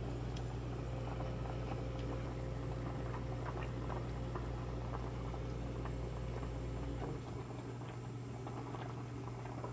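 Shabu-shabu broth boiling in a shallow pot, a steady light bubbling and crackle over a low hum. The hum drops away about seven seconds in.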